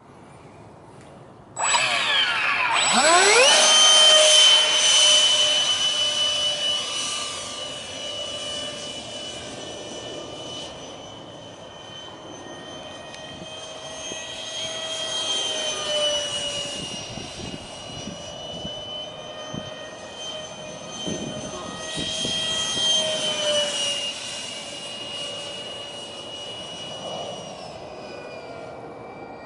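Electric ducted fan of a radio-controlled F-22 Raptor model jet spooling up with a rising whine about two seconds in. It then runs at a steady high whine that swells and fades a few times as the plane flies around.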